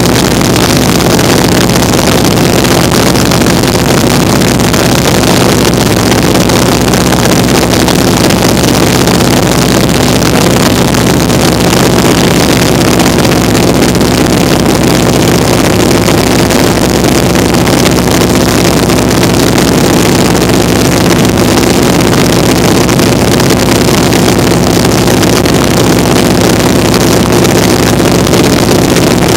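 Vintage open-cockpit biplane in flight: its radial engine and propeller running at a steady cruise, with heavy wind rush over the open cockpit and the microphone.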